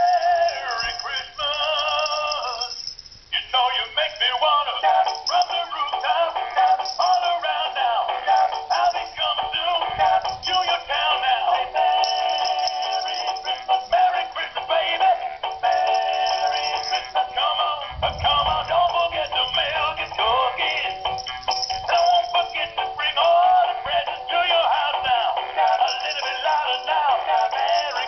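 Animated plush Christmas puppy toy singing a Christmas song through its small built-in speaker, a tinny sound with almost no bass. The song breaks off briefly about three seconds in, then carries on.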